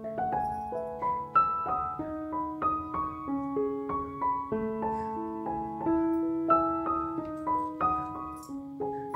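Background piano music: a gentle melody of single struck notes over held lower notes.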